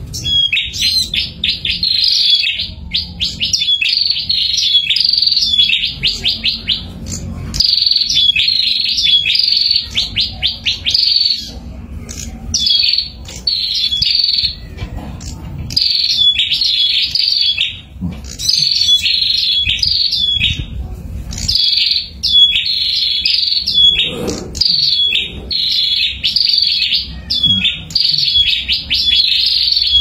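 A pair of prinias (prenjak) singing loudly: fast runs of sharp, high chirps repeated in bursts of a second or two, with short pauses between them.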